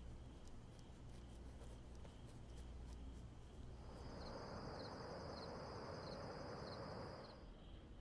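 Faint ambient sound bed: a low steady hum and a thin, steady high trill. About four seconds in, a soft rush of noise swells up with a higher, evenly pulsing chirp for about three seconds, then falls away.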